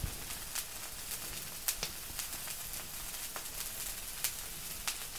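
Steady hiss of food sizzling on a hot comal, with scattered crackles and light clicks.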